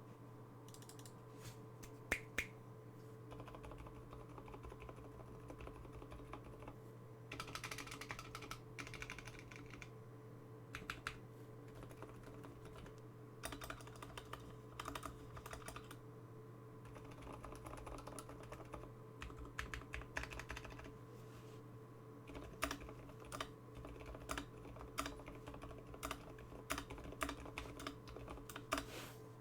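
Typing on an IDOBAO ID80 mechanical keyboard with Zeal Sakurio tactile switches, lubed with Krytox 205g0 and filmed. The keystrokes come in runs of quick presses with short pauses between, over a steady low hum.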